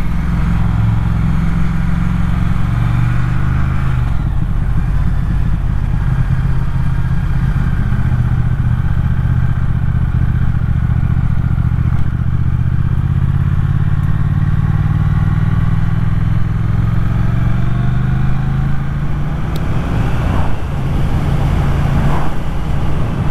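Motorcycle engine running on the move, heard from the rider's own bike. Its note rises and falls as the bike changes speed.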